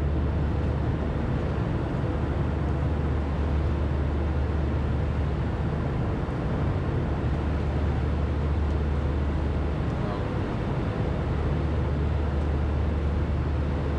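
Steady cabin drone of a jet airliner in flight, engine and airflow noise with a strong low hum underneath.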